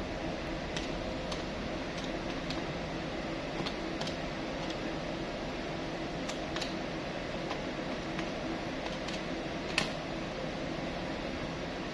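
Plastic keys of a desktop calculator being pressed one at a time, a dozen or so light clicks at an uneven pace, one sharper click near the end. Under them runs a steady machine hum like a fan or ventilation.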